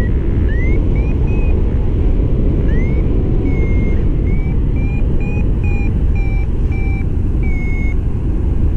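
Paragliding variometer beeping, a string of short tones, the first few rising in pitch and then about two a second from the middle on: the vario signalling that the glider is climbing in lift. Steady wind rush on the microphone, the loudest sound, runs underneath.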